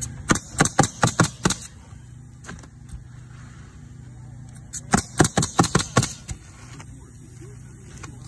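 Pneumatic coil roofing nailer firing nails through asphalt shingles in two quick runs of about six shots each, a few seconds apart, with a single shot between them. A steady low hum runs underneath.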